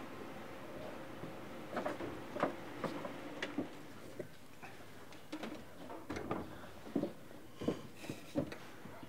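Hands handling objects on a carved wooden stand: an irregular run of light knocks and clicks as a round object is moved and a photo is laid down, starting about two seconds in after a low steady hum.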